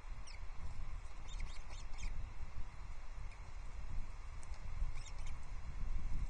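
Osprey chirps on the nest: short, high-pitched calls that fall in pitch, coming in a few quick clusters over a steady low rumble.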